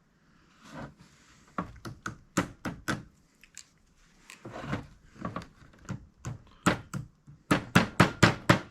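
Repeated sharp taps on a VW rocker arm shaft assembly as its retaining pin is beaten back into place. A few scattered taps come first, then a quicker run of about three to four a second near the end.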